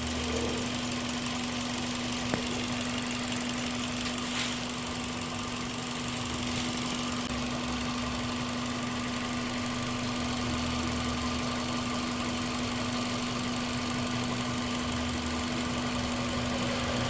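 Toyota Vios 1.5-litre engine idling steadily with a constant hum; the engine has a vacuum leak causing a lean condition and rough idle. A single sharp click about two seconds in.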